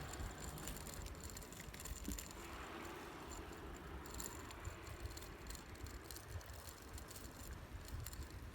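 Faint rattling and small clicks over a low, steady rumble, as of a bicycle ride recorded on a phone in a handlebar-mounted gimbal.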